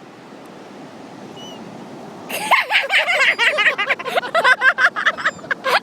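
Steady rushing background noise, then about two and a half seconds in a flock of seagulls bursts into loud, overlapping squawking calls that keep on to the end.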